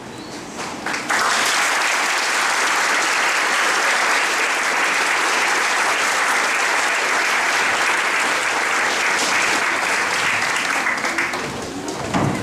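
Audience applauding: a few scattered claps, then full clapping from about a second in that dies down near the end.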